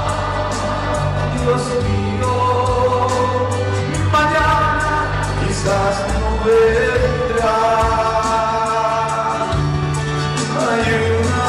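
Christian worship song: voices singing a slow melody over music with a low bass line and a steady beat.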